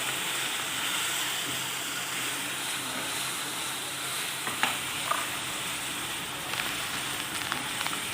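Food frying in hot oil in a pan, a steady sizzle, with two brief clicks about halfway through.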